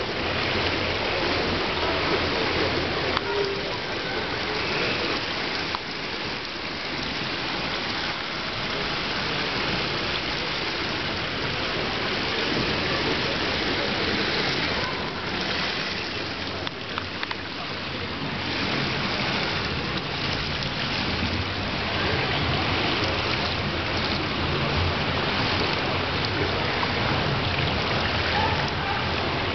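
Steady rushing water noise from a swimming pool, with no distinct single event.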